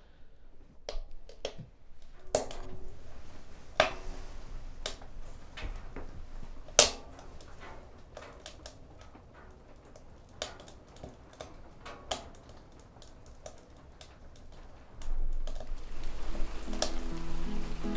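Wood fire crackling and popping inside a cast-iron wood stove behind its closed glass door: irregular sharp cracks, the loudest about 4 and 7 seconds in. Near the end music comes in.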